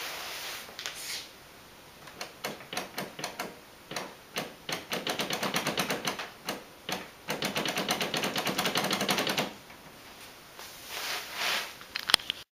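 Aileron servos of a large radio-controlled model biplane driving the ailerons quickly back and forth, a rapid ticking buzz in bursts that is densest through the middle, with one sharp click near the end.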